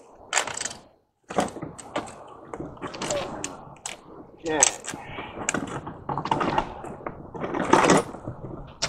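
Handling noise from hands working pipe fittings: uneven rustles, clicks and knocks, with low indistinct voices. The sound cuts out completely for a moment about a second in.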